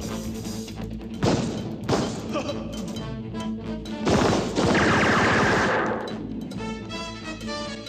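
Gunfight sound effects from a TV action scene over dramatic background music. There are a couple of sharp shots or impacts early on, then a louder burst of gunfire about four seconds in that lasts nearly two seconds.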